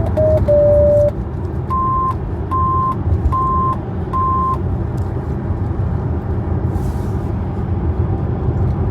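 Electronic alarm tones from a VW T6.1 van: a short run of tones stepping down in pitch ends on a longer low tone, followed by four evenly spaced higher beeps. A steady low rumble runs underneath.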